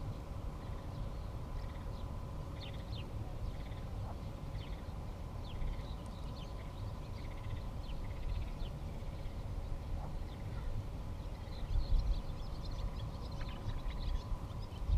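Birds chirping: many short, high, irregular calls over a steady low rumble and a faint steady hum.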